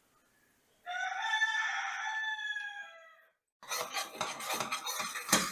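A rooster crowing once, one long call that drops in pitch at the end. About three and a half seconds in, a busy clatter and scraping of kitchen utensils starts.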